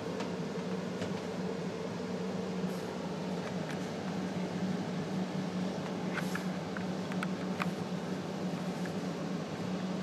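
Steady low machine hum, like a room fan or air conditioner. About six to eight seconds in come a few faint clicks and cloth rustles as a snake is shaken out of a cloth bag into a plastic tub with long metal tongs.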